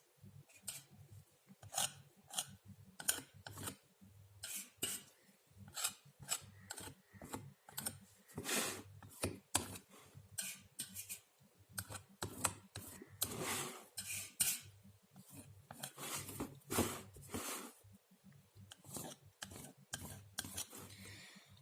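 Painting knife scraping and spreading thick acrylic paint across a board canvas in many short, irregular strokes.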